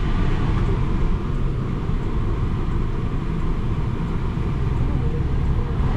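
Steady low rumble heard from inside a car cabin: the car's engine running, with the noise of surrounding road traffic.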